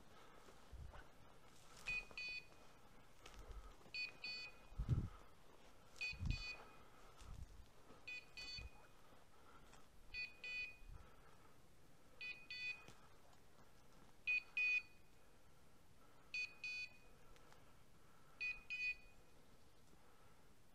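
Hunting dog's beeper collar sounding a high electronic double beep that repeats about every two seconds, nine times. On a bird dog's collar this beep marks that the setter is standing still on point. A couple of low thumps come about five and six seconds in.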